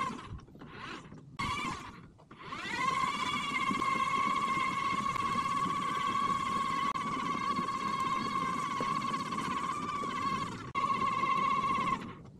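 Electric track-drive motors of a Yarbo robot snowblower whining as it is driven. There are a few short bursts first, then a steady whine that rises in pitch as it gets going, over a low rumble. The whine breaks off briefly, resumes, and cuts off near the end.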